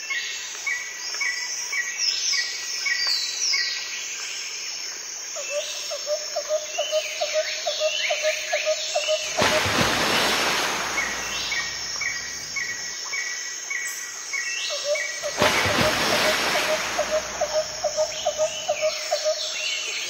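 Nature ambience of birds singing and calling: short repeated chirps and falling whistles over a fast, insect-like run of repeated notes. Two swells of rushing noise come through, one about halfway and another a few seconds later.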